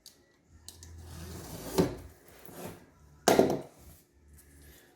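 Vinyl plank flooring being handled on a wooden workbench after being scored and snapped: a scraping, rubbing sound for about a second and a half, then a single sharp knock a little past the middle.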